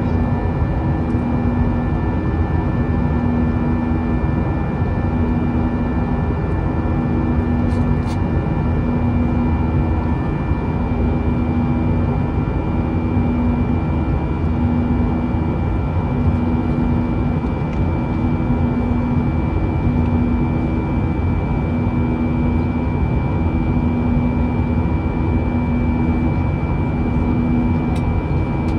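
Airbus A320 cabin noise in flight: a loud, steady jet drone with a slow, regular pulsing in its low hum.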